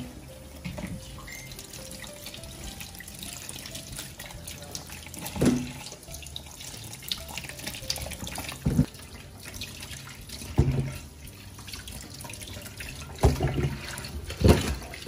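Kitchen tap running into a stainless-steel sink as peeled potatoes are rinsed by hand over a plastic bowl, water splashing and dripping. About five louder knocks stand out at intervals.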